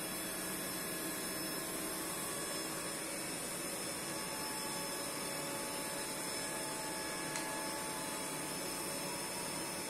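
Steady whirring hiss of a GF Mikron CNC milling machine running, with faint steady tones and no cutting rhythm. A single short click sounds about seven seconds in.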